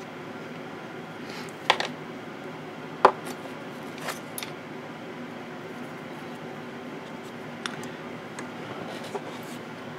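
A few sharp clicks and knocks as a small paint jar is opened and its cap and the jar are set down on a workbench, the loudest about three seconds in, over a steady low background noise.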